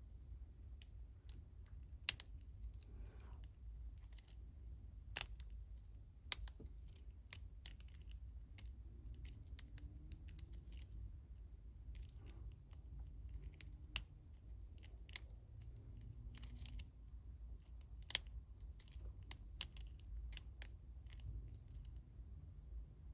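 Lock pick and tension wrench working the pin stack of a Union 5-pin oval cylinder: faint, irregular small clicks and scrapes as pins are lifted and set, with a few sharper clicks scattered through.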